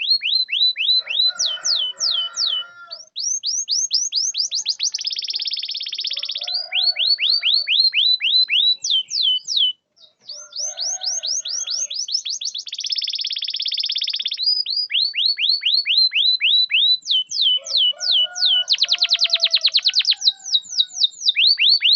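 Domestic canary singing a long song of rapid repeated down-slurred notes that give way several times to faster buzzing rolls, with softer lower notes under some phrases and a brief pause about ten seconds in.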